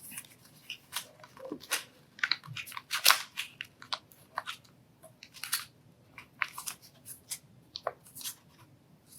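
Folded paper crinkling and rustling in irregular short crackles as an origami paper crane is handled and its wings worked flat.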